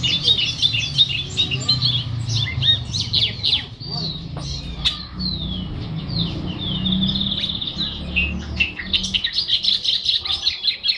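A caged charlatán songbird singing: a long, varied run of quick chirps, whistles and squawky notes with short rising and falling slides, barely pausing. A steady low background rumble runs underneath.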